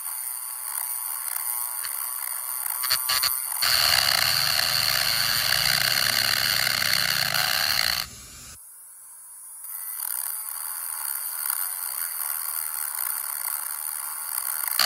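Small electric rotary grinder running with a high whine as it grinds into the soldered hinge of a Zippo lighter case. The grinding gets heavier about four seconds in, then eases off sharply around eight seconds before picking up again.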